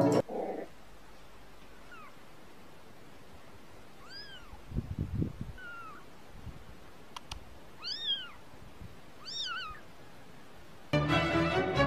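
A tiny newborn kitten mewing: about five short, high mews, each rising and then falling in pitch, a second or two apart. A low rumble about five seconds in, and music comes in near the end.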